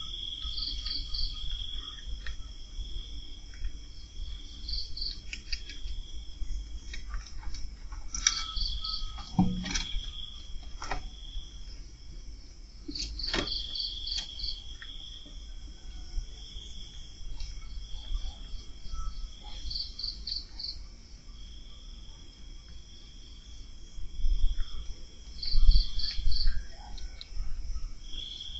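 Crickets calling at night: one holds a steady high trill that breaks off now and then, while another gives short pulsed chirps every few seconds. A few sharp clicks sound in the middle, and some low thumps come near the end.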